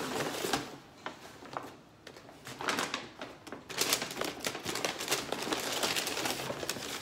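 Paper shopping bag and brown paper wrapping rustling and crinkling as hands rummage through them, in irregular crackly bursts that grow fuller in the second half.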